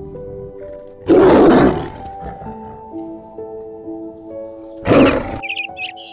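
Tiger roaring twice over soft background music: a longer roar about a second in and a shorter one near five seconds.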